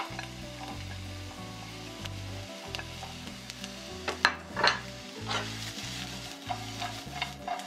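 Sliced onion, carrot and shiitake mushrooms sizzling as they are stir-fried in a hot, lightly oiled frying pan. A couple of sharper utensil scrapes against the pan come a little past the middle.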